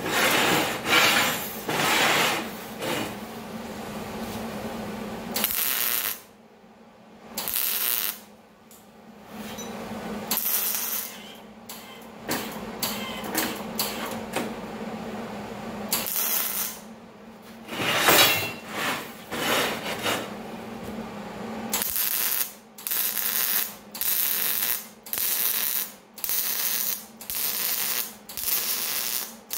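MIG welder tacking expanded steel mesh to its steel frame: the arc crackles in separate bursts of a second or two, then in a quick, even series of short tack welds about one a second near the end.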